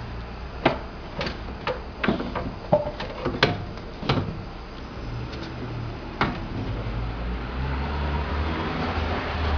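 Irregular metal knocks and clinks of tools and parts while a car's steering box is being unbolted and removed, then a steady low hum for the last few seconds.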